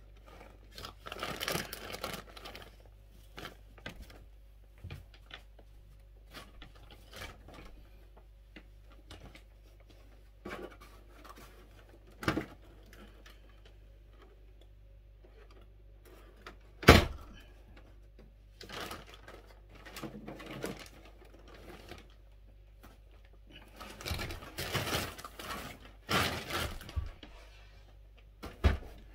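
Printer packaging being handled and unpacked: bursts of rustling and scraping with scattered clicks and knocks, and one sharp, loud knock about seventeen seconds in.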